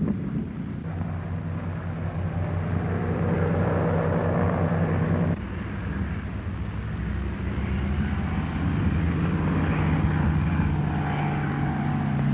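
Steady engine drone with a humming pitch. It changes abruptly about five seconds in and goes on at a slightly different pitch.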